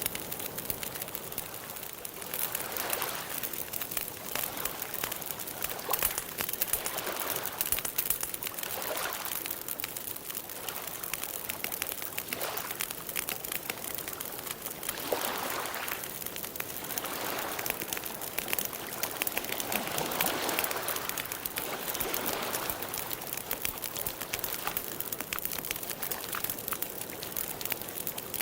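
Wood campfire crackling and popping in quick, uneven clicks, with lake water lapping against the shore in soft swells every second or few.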